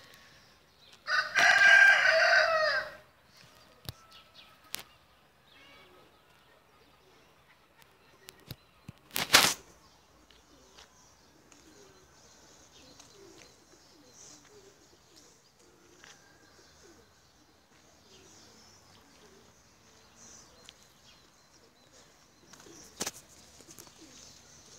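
A rooster crows once, loud and drawn out for about two seconds, starting about a second in. A single sharp knock comes around nine seconds.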